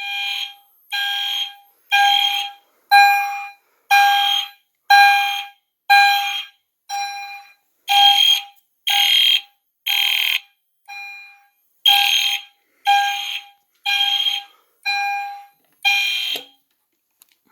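EST Genesis fire alarm horn and chime sounding together in alarm, about one blast a second, triggered by a manual pull station. The appliances sound in sync.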